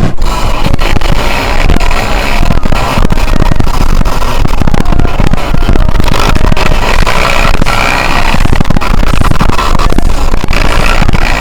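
Loud rock music with guitar over the crackling, continuous run of a Yamaha YZ125 two-stroke dirt bike engine.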